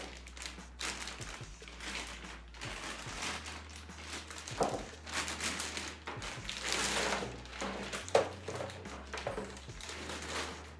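A thin clear plastic bag crinkling and rustling in irregular bursts as a rifle is slid out of it and the bag is pulled away, with one sharp knock about eight seconds in.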